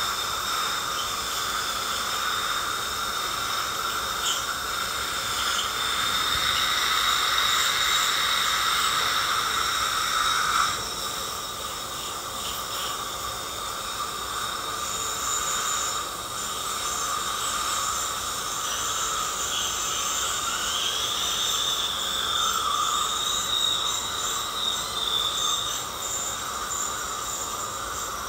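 Woodpecker ultrasonic scaler running against teeth to remove heavy tartar: a steady high whine over a hiss. About eleven seconds in, the lower part of the whine drops away and it gets a little quieter.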